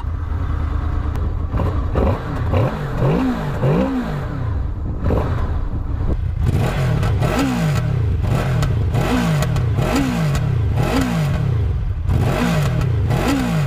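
Honda VFR 800's 800 cc 90° V4 engine revved in repeated throttle blips, the pitch rising and falling over and over. It pops a little on the overrun, like a backfire.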